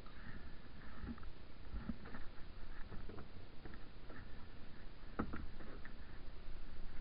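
Scattered knocks and scrapes as a kayak is handled alongside a grassy canal bank, the strongest about two and five seconds in, over a steady low rumble.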